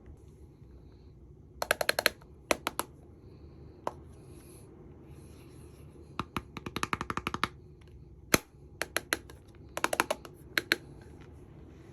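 Bursts of sharp clicks and taps from small hard makeup-set pieces being handled. There is a fast run of ticks near the middle and one loud snap shortly after.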